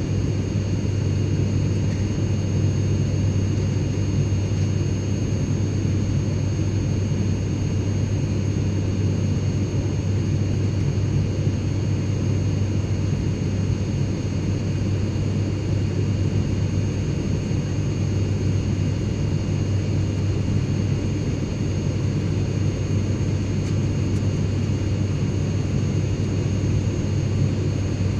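Airplane cabin noise in flight: a steady, even low rumble of engines and airflow, with faint steady high-pitched whines above it.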